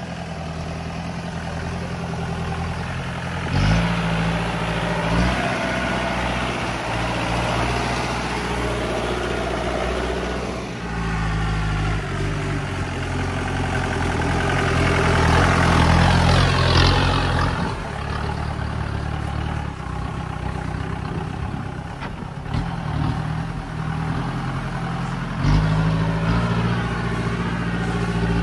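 Mahindra 4x4 jeep's diesel engine pulling up a steep rough track. The revs rise in the middle and drop back, with a few sharp knocks along the way.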